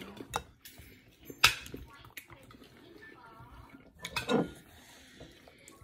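Metal fork clinking and scraping on a plate while eating, with one sharp clink about a second and a half in and another clatter a little past four seconds.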